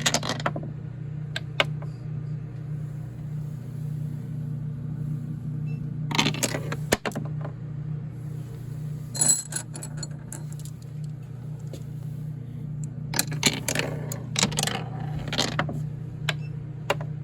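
Marbles rolling and clacking through a Quadrilla marble run, in scattered sharp clicks and short rattling clusters, over a steady low hum.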